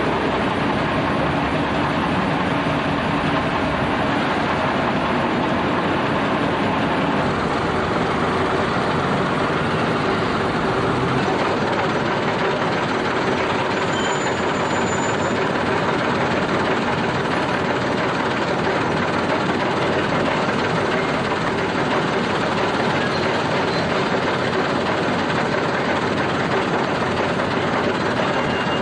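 Diesel engines of double-decker buses idling and running at a bus stop, a loud steady sound with no breaks.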